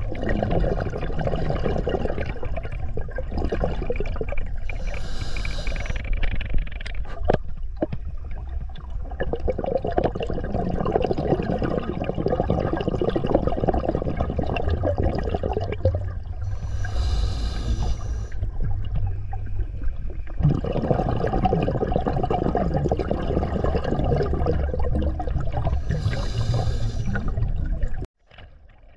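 Scuba diver breathing underwater on an open-circuit regulator. Three short hissing inhalations come about ten seconds apart, each followed by a long gush of exhaled bubbles. The sound cuts off sharply near the end.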